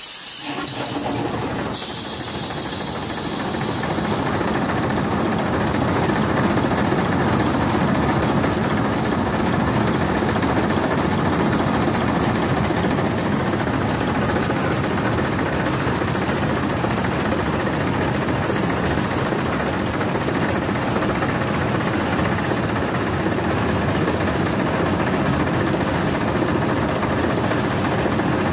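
Heavy diesel engine running steadily at a constant level, with a brief high hiss in the first two seconds.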